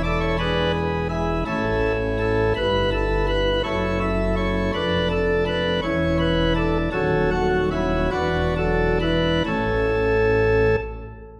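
Organ with pedal bass playing the closing bars of a Breton hymn in A major, the chords moving in steps and slowing down. It ends on a held final chord that cuts off about a second before the end and dies away briefly.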